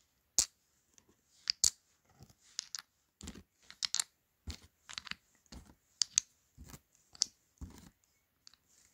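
Wooden counters being set one by one into the round hollows of a wooden twenty-frame tray: a run of about a dozen short wooden clicks and soft knocks at an uneven pace, one or two a second, some with a duller thump as a disc drops into place.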